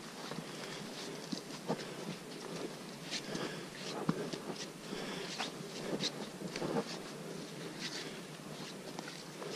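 Footsteps of hikers on a muddy, leaf-strewn forest trail: irregular scuffs and crunches over a steady background hiss.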